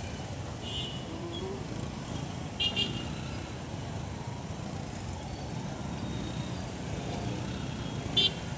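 Busy street traffic of motorcycle taxis and cars, a steady low rumble, cut by short high horn toots: a double toot about two and a half seconds in and another near the end.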